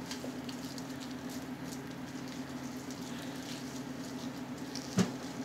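Faint soft wet patter and squishing of hands working deep conditioner through wet hair, over a steady low hum. One sharp click about five seconds in.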